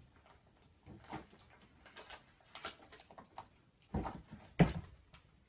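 A cat rummaging in an open desk drawer: scattered light knocks and rustles, then two louder thumps about four seconds in.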